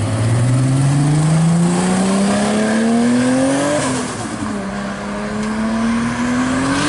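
Mk4 Toyota Supra's engine accelerating hard, its pitch climbing steadily through one gear for about four seconds, dropping at an upshift, then climbing again through the next gear.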